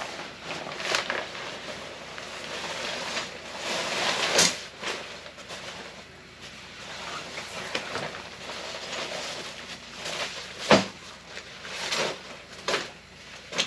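Irregular rustling and shifting of tent fabric and plastic wrapping being handled as someone rummages inside a rooftop tent. One sharp knock late on is the loudest sound.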